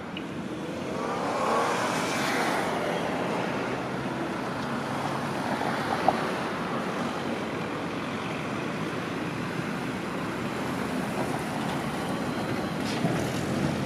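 City road traffic: cars driving past on a wet street, one swelling past about a second or two in, with a single sharp click about six seconds in. Near the end a low-floor Electron tram draws close, with a few faint clicks.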